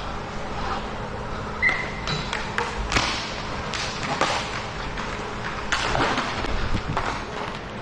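Ice hockey play: several sharp clacks of sticks striking the puck and each other, with a couple of longer hissing scrapes of skates on the ice around three and six seconds in.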